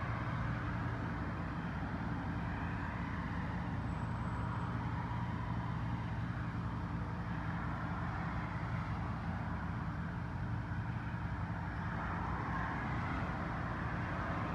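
Steady low background rumble with a constant hum, unchanging throughout, like distant traffic or a running motor.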